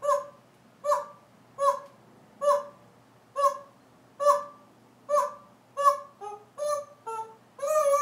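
African grey parrot giving the same short call again and again, about once a second, eight times, then a few quick notes at different pitches and a longer call near the end.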